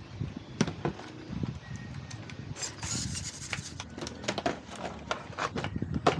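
Plastic body shell of a Tamiya CC01 Toyota Hilux RC truck being lowered and pressed onto its chassis by hand: scattered clicks and knocks with a brief scratchy rustle about three seconds in. The sharpest clicks come near the end.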